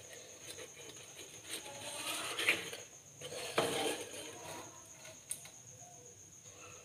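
Kitchen handling noises: a plastic bag crinkling and bangles jingling with light clinks against a steel plate, in two short bursts about a second and a half apart.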